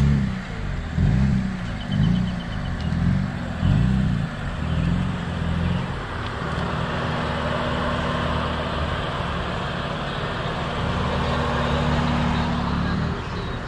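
BMW M4's S55 twin-turbo straight-six, fitted with VRSF front-facing intakes, revved in a series of short throttle blips roughly once a second for the first six seconds, then settling to a steady idle.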